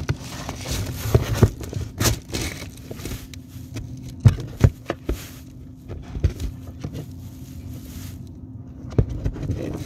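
Irregular knocks, taps and scraping against a closed box holding the recording phone, over a steady low hum; a few louder knocks come about four to five seconds in.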